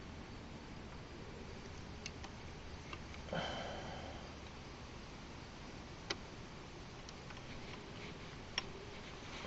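Scattered light metallic clicks and taps of hand tools and small parts being handled at a motorcycle engine's shift mechanism, with one louder clink that rings briefly about three and a half seconds in.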